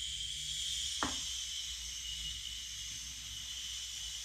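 Baking soda fizzing steadily as red-coloured vinegar is poured onto it, a high hiss of the acid-base reaction bubbling; a light tap about a second in.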